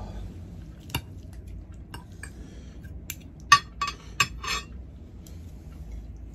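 Metal cutlery clinking against ceramic bowls as noodles are served and eaten: a scatter of short sharp clinks between about one and four and a half seconds in, the loudest about three and a half seconds in.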